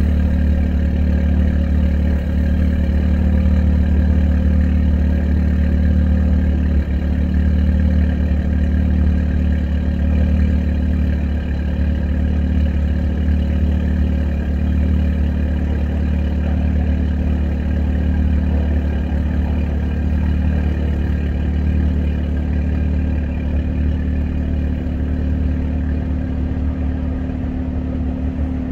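2015 Audi S3's turbocharged 2.0-litre four-cylinder idling steadily through a catted downpipe, a deleted resonator and the stock muffler, gradually getting a little quieter.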